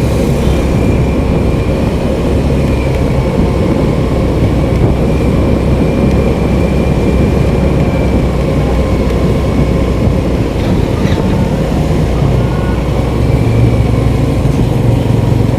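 Motorcycle riding along at steady speed: the engine runs evenly under loud, continuous road and wind noise.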